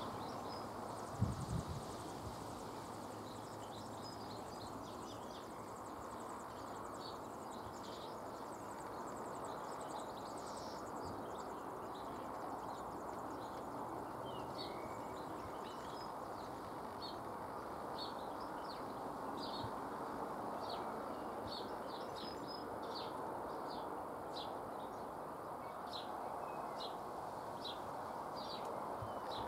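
Nestlings giving short, high begging chirps, one or two a second and coming more often in the second half, over steady background noise. A low thump about a second in.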